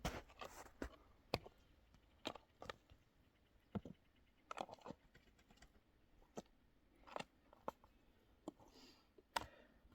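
Faint, irregular clicks and light taps, a dozen or so spread out unevenly, like small objects being handled.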